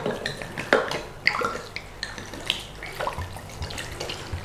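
Red wine being poured from a bottle into a slow cooker, glugging and splashing into the stew in irregular gurgles.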